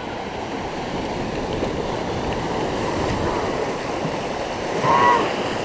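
Shallow surf washing in: a steady rush of small breaking waves that swells about halfway through. A brief high-pitched vocal sound near the end.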